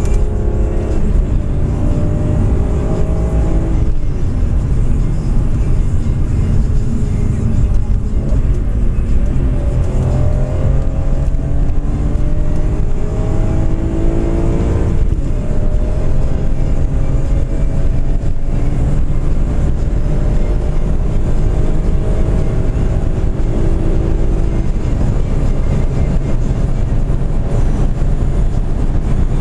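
BMW M3 engine heard from inside the cabin while the car accelerates, over a heavy rumble of road and tyre noise. The engine note climbs and drops back twice, about four seconds in and again about fifteen seconds in, as at upshifts, then holds a steady pitch before easing off near the end.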